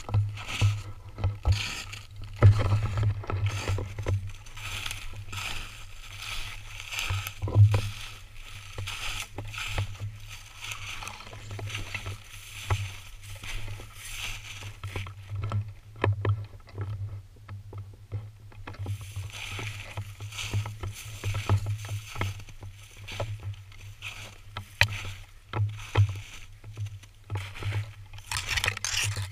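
Footsteps crunching through shallow snow and dry grass, with dry stalks and brush rustling against clothing and a low thud at each footfall. The rustling eases for a few seconds past the middle, then picks up again.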